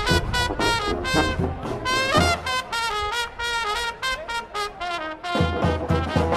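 Street marching band playing, horns over a low bass line and drums. About two seconds in, the drums and low end drop out and the horns carry on alone for about three seconds. Then the drums and bass come back in.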